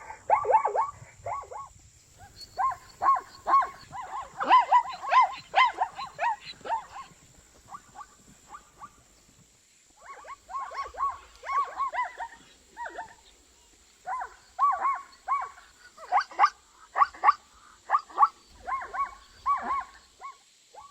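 Zebra calling in bouts of rapid, repeated yelping barks, several per second, with short pauses between the bouts.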